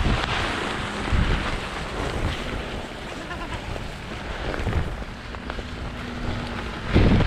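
Wind buffeting the microphone: a steady rushing noise with stronger gusts at the start and again near the end.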